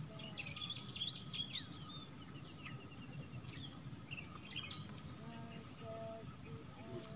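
Steady high-pitched insect drone with many short bird chirps scattered over it, busiest in the first second or two.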